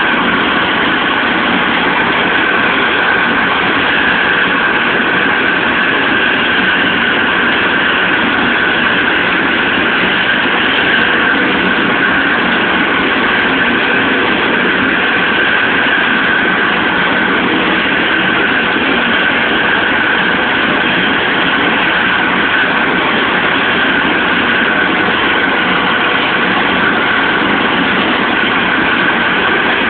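Helicopter turbine engines running on the ground before takeoff: a loud, even rush with a steady whine held at one pitch.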